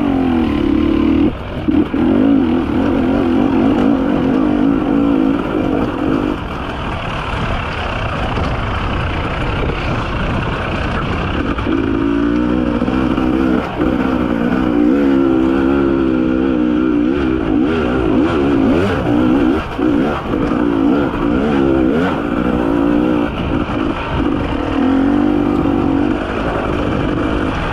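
Two-stroke 300 cc enduro motorcycle engine revving up and down under shifting throttle, with short knocks and clatter from the bike over rough ground. The engine eases off for a few seconds from about six seconds in, then picks up again with repeated blips of throttle.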